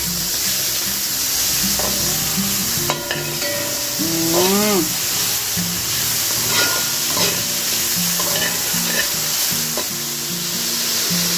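Salt fish and aromatics sizzling as they fry in a hot pot, with a spoon stirring and scraping and a few clicks against the pot. Background music with a stepping bass line plays underneath.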